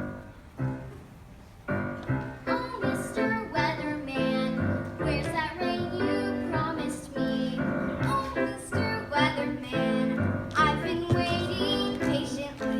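Music: a song with instrumental accompaniment and a child singing, starting with a single note and filling out about two seconds in.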